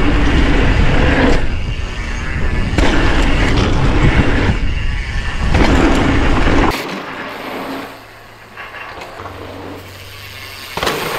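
Wind buffeting an action camera's microphone and mountain-bike tyres rolling fast over a dirt trail, a loud rumble that swells and eases over the jumps. About seven seconds in it cuts to a much quieter outdoor sound with a faint low steady hum.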